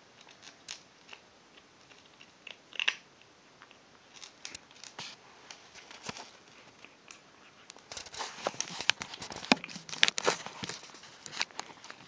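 Kitten crunching dry kibble: scattered crisp crunches, sparse at first, then a dense run of chewing about two-thirds of the way in.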